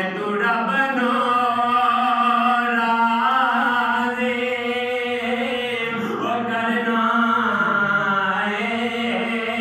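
A man singing a naat solo and unaccompanied, in long held notes that waver and glide in pitch.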